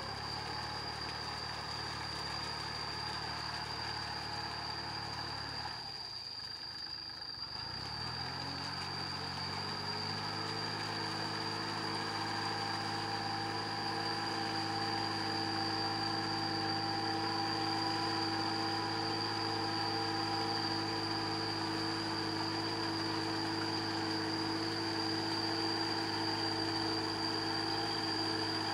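Kubota compact tractor's diesel engine running steadily while it drags a leveller through a flooded rice paddy. Its note dips a few seconds in, then climbs to a higher, steady pitch, growing slowly louder as the tractor comes closer.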